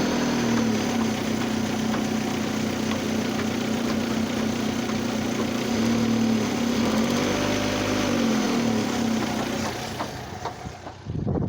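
Oldsmobile Alero engine running at idle with a cylinder misfire. It revs up briefly and back down about seven seconds in, then the sound drops away near the end.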